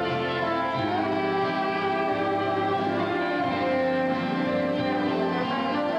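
Orchestral music led by strings, playing sustained, slowly changing chords.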